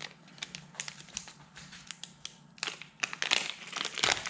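Hands handling small parts and their wrapping: scattered light clicks and crinkling rustles, busiest in the last second or so.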